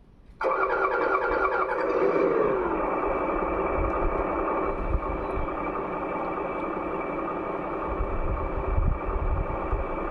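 An RC construction model's simulated diesel engine sound starts suddenly, revs briefly, falls back, and settles into a steady idle.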